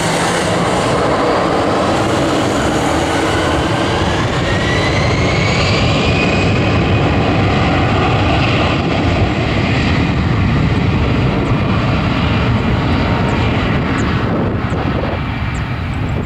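Airbus A320's two CFM56 turbofan engines spooling up to takeoff thrust: a loud, steady jet roar with a whine that rises in pitch over the first several seconds, as the airliner accelerates down the runway on its takeoff roll.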